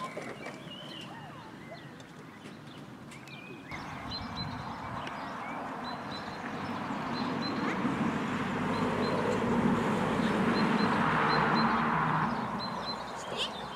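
A small bird chirping over and over in short high notes, over a rushing background noise that swells up through the middle and dies away near the end.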